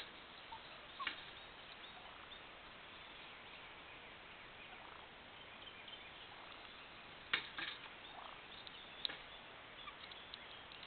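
Wild turkey gobbler calling: a cluster of gobbling notes about seven seconds in, with a few short sharp calls near the start, about a second in and again near nine seconds.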